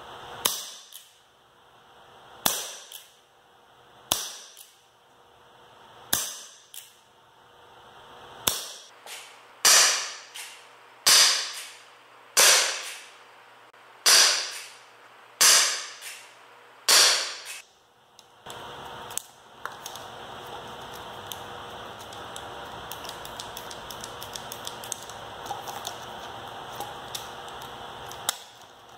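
Umarex Colt Single Action Army CO2 .177 BB revolver firing about eleven sharp shots, one every one and a half to two seconds, each with a short echo; the last six are louder. For the last ten seconds there is only a steady hiss.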